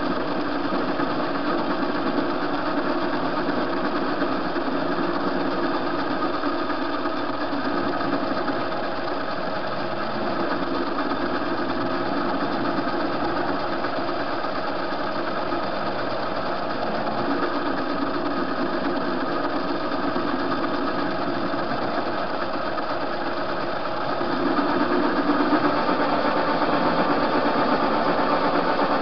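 TV-16 metal lathe running steadily, its workpiece turning as the cutter takes a turning pass. Near the end the sound grows louder.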